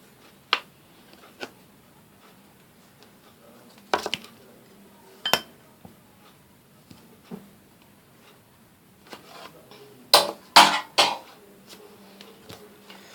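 A teaspoon clinking and tapping against a mixing bowl in a few scattered knocks, then a quick run of louder clinks about ten seconds in.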